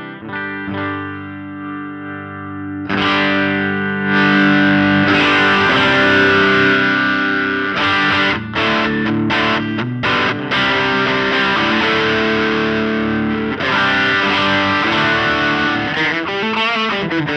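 Electric guitar played through a NUX Ace of Tone dual overdrive pedal. A chord rings out for about three seconds, then louder overdriven strumming follows, with short breaks between phrases.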